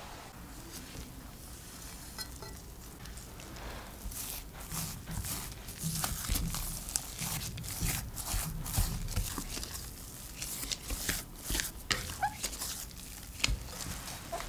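Silicone spatula mixing chopped coriander into mashed potatoes in a glass bowl: soft, irregular squishing and scraping strokes, busier and louder from about four seconds in.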